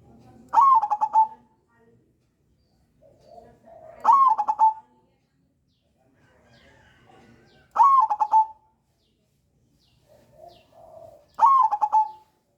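Zebra dove (perkutut) of the crossing strain singing its cooing song: four phrases, each a soft low coo followed by a quick run of loud, ringing notes.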